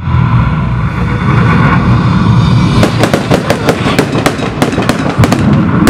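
Firecrackers crackling: a rapid, irregular run of about a dozen sharp cracks starting about halfway through, over a steady low rumble.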